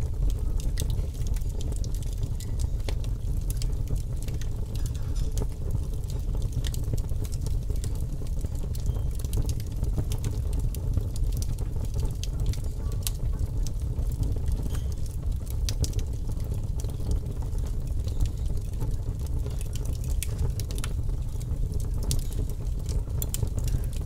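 Fire crackling: frequent small pops and snaps scattered over a steady low rumble.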